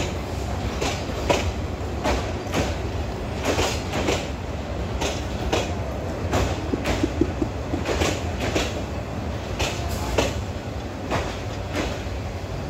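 Bangladesh Railway intercity passenger coaches rolling past close by: a steady low rumble with a regular clickety-clack as the wheels cross the rail joints, the clicks often coming in close pairs.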